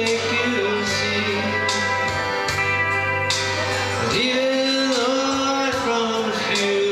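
Country-music karaoke backing track playing, with steel guitar and guitar carrying a sliding melody over steady bass.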